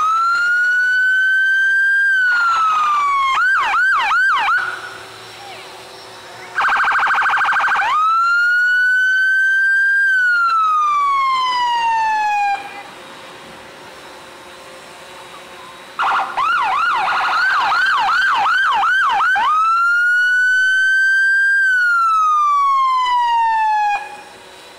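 Police car electronic sirens sounding as patrol cars pass: three long wails that rise and fall, with bursts of fast yelp between them and a short buzzing blast about seven seconds in.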